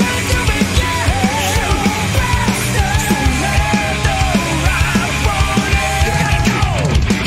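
Loud heavy rock music: a steady driving drum beat under dense guitars, with a wavering lead line on top.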